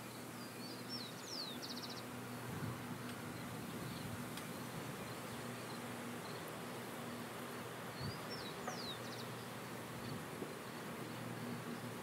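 Open-field ambience: a steady faint hiss with a low hum underneath, and a bird giving a short high call of quick falling notes and a brief trill, twice, about a second in and again about eight seconds in.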